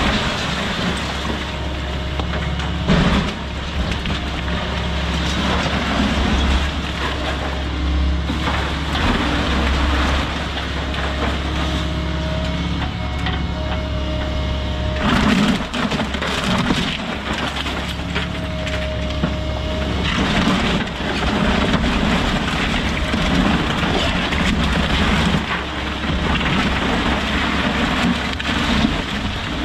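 A Volvo hydraulic excavator's diesel engine runs steadily while its bucket tears into a wood-framed house, with timber cracking and debris crashing down. Heavier crashes come about 3 seconds in, around 15 seconds and around 20 seconds.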